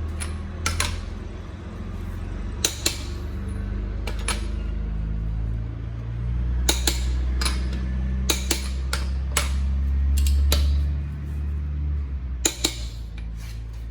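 Click-type torque wrench tightening wheel lug nuts to 98 foot-pounds, with a string of sharp metallic clicks, some in quick pairs, as each nut reaches torque. A steady low hum runs underneath.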